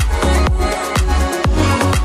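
Background electronic dance music with a steady beat of about two beats a second over deep bass.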